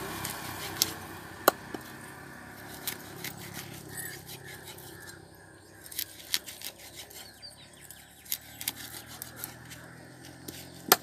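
A large knife chopping a fish into steaks on a chopping block: irregular sharp knocks and scrapes as the blade cuts through and strikes the block, the loudest about a second and a half in and just before the end.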